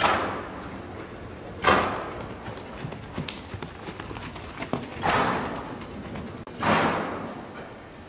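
Ridden horse's hoofbeats with soft knocks and clicks, broken by four louder rushes of noise that each fade over about half a second.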